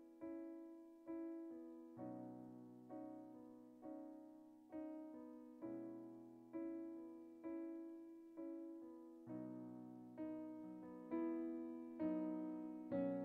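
Slow, gentle piano music: a chord struck about once a second and left to fade, the chords growing louder and reaching higher about nine seconds in.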